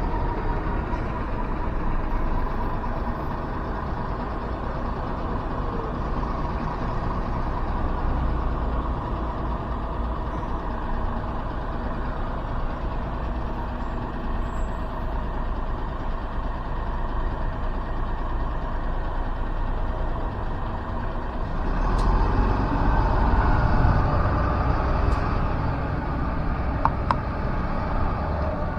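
City bus engine running steadily, getting louder about two-thirds of the way through, with a few brief clicks.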